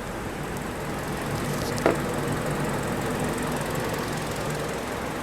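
Hyundai Sonata LPI engine idling with the air conditioning running and the electric cooling fan turning at low speed, a steady mechanical hum. A single sharp click about two seconds in.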